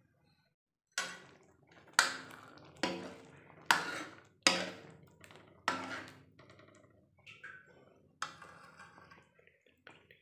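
Steel lid and spoon clanking against a steel kadai of chole as it is uncovered and stirred: about seven sharp metal clanks, each ringing briefly, with softer scraping between them.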